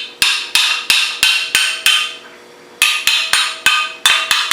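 Hammer blows on metal engine parts, about three a second, each strike ringing; a pause of about a second in the middle, then the hammering resumes.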